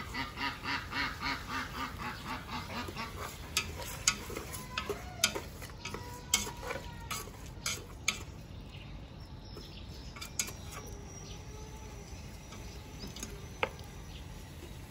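Poultry calling in a quick run of about four calls a second for the first three seconds. This is followed by a series of sharp clicks and knocks of a utensil against cookware as fish is stirred with fish sauce. Faint bird calls carry on after that.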